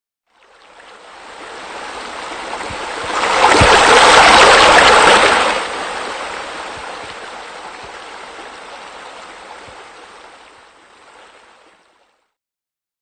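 Rushing, splashing water of a pool waterfall, fading in, loudest about four seconds in, then slowly dying away.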